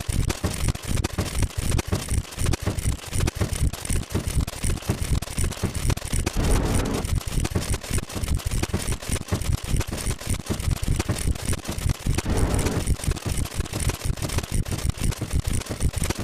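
A dense, rapid stream of clicking counter sound effects, far too many to count, with a fuller, louder stretch recurring about every six seconds.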